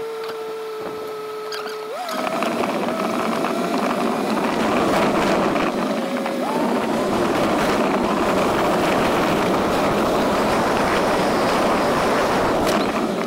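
A vehicle's motor running over a loud, rough rushing noise. Its steady pitch jumps up sharply about two seconds in and again about six and a half seconds in, sagging slowly in between.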